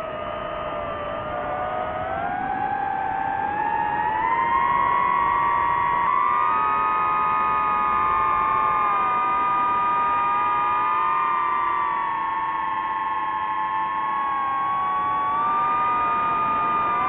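Multirotor drone's electric motors and propellers whining: several close tones rise in pitch over the first few seconds as the motors speed up, then hold steady.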